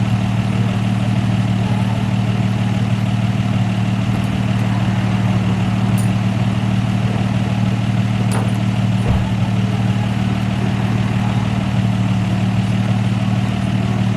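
A car engine idling steadily with a constant low hum, with a few faint clicks.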